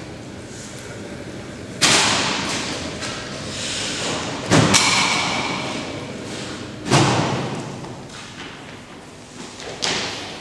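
A series of heavy thuds in a large, echoing room, five in all, a couple of seconds apart, with two close together near the middle. Each one rings on and dies away over about a second.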